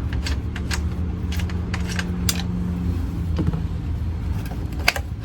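Scattered light metallic clicks and clinks of tools and parts being handled while a truck door handle mechanism is worked on, over a steady low hum. Part of the hum drops out about three seconds in.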